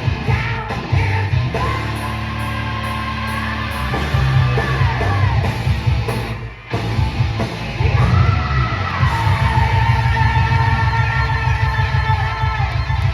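Live heavy metal band playing loud, with a singer yelling two long held high notes that each end in a falling slide. There is a short drop in the sound between them.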